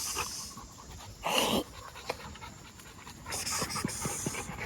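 American bully dogs panting hard and fast. There is a short, louder scuffling burst about a second in and a quicker run of breaths near the end.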